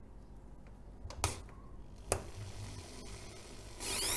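Two light clicks, then near the end a power drill starts up and bores into a wooden base.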